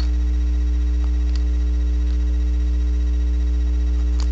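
Loud, steady low electrical hum, with a few faint light clicks of plastic Lego pieces being handled.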